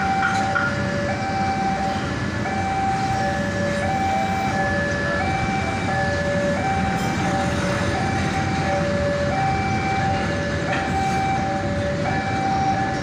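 A railway level-crossing warning alarm sounding a steady two-tone signal, its two pitches alternating evenly, while a train of fuel tank wagons rolls past over the crossing with a continuous rumble.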